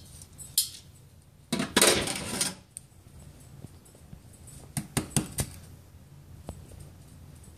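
Handling sounds at a kitchen counter: a loud rustle lasting about a second, then a few light clicks and clinks around the middle.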